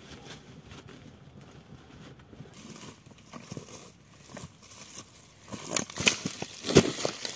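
Footsteps and dry grass crunching and rustling as a person scrambles down a steep grassy slope, irregular and light at first, then much louder and busier in the last couple of seconds as the steps come close.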